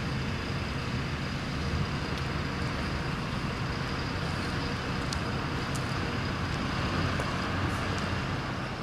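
Steady road traffic noise: a continuous hum of cars with a low rumble, no single vehicle standing out.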